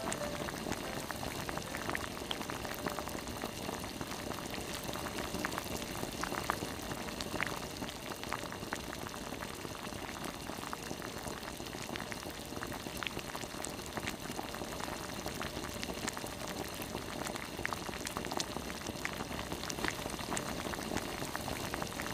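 Sweet-and-sour sauce with chunks of vegetables and apple bubbling at a steady boil in a frying pan, with many small pops.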